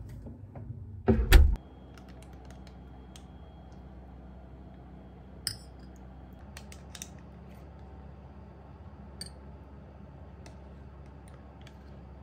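Two loud thumps about a second in, then scattered light clinks and scrapes of a metal spoon scooping thick yogurt from a plastic tub into a ceramic bowl, over a low steady hum.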